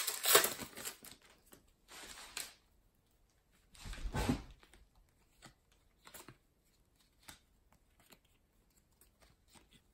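A trading-card pack wrapper tearing open, then the cards inside being handled and flipped through, with soft rustles and small clicks. A louder thump with a low rumble comes about four seconds in.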